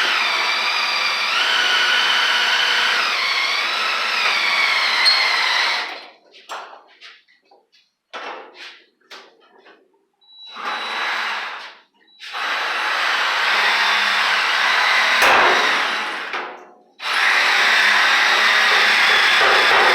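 Power drill drilling out bus body rivets, its motor whine shifting in pitch under load. It runs for about six seconds, then comes in a string of short trigger bursts, then runs long again.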